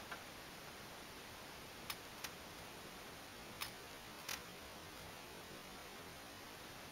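Katana slicing through a bamboo pole in tameshigiri test cuts: short, sharp cracks, four in all in two close pairs, over a steady hiss.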